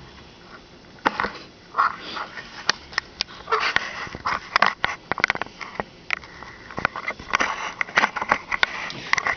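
Irregular snoring and snuffling breaths of a sleeper, mixed with short sharp clicks.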